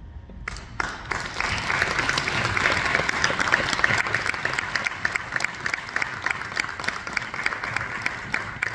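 Audience applauding, breaking out sharply about half a second in and thinning to scattered claps near the end.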